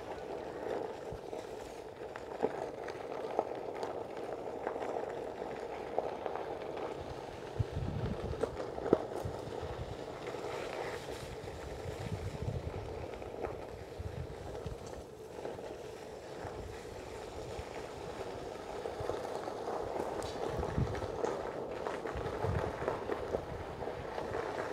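Riding an electric Onewheel board: a steady rolling rumble from the board, with wind gusting on the microphone and a few sharp knocks from bumps.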